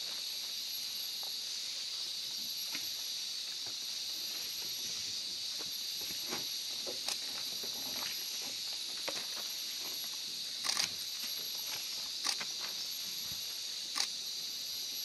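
Steady, high, hissing drone of a rainforest insect chorus, with scattered soft clicks and snaps, a few sharper ones near the end.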